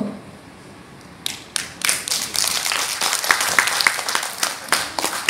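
Audience applause: hand clapping starts about a second in and quickly builds into steady applause.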